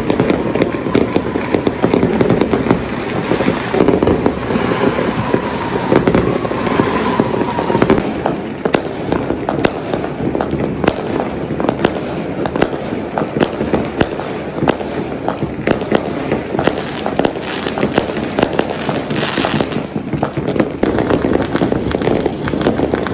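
Firecrackers and fireworks going off in dense, continuous volleys of overlapping cracks and bangs. A faint falling whistle runs under the cracking for the first several seconds.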